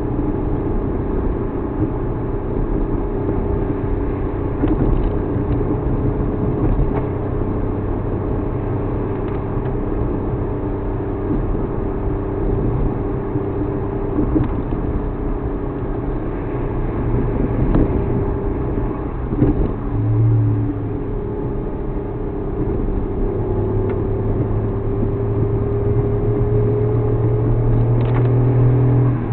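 Suzuki Alto Works HA36S small car running, heard as a steady engine drone with road noise. The drone shifts in pitch and a deeper hum comes in about two-thirds of the way through. A few faint knocks sound, perhaps the 'koto-koto' noise from the front left that the owner is chasing.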